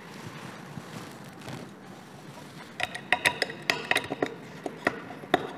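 Small metal clicks and clinks from a screwdriver working the pivot screw of a hard disk drive's head actuator arm. Soft handling noise first, then from about three seconds in a quick, irregular run of sharp ticks.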